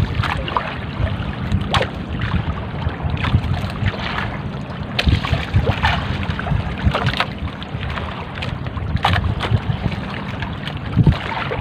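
Small fishing boat at sea: a steady low engine drone under wind buffeting the microphone, with choppy waves slapping and splashing against the hull now and then.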